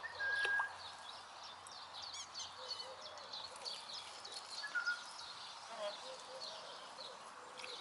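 Small birds chirping and singing, many quick chirps with a few clear whistled notes, over a steady outdoor background hiss.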